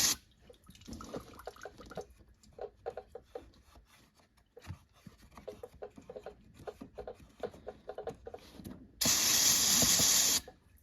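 Aerosol brake cleaner sprayed into a snowmobile's chain case: a loud spray hiss cuts off at the start, then faint dripping and trickling of solvent running out of the case, then a second hiss of spray for about a second and a half near the end.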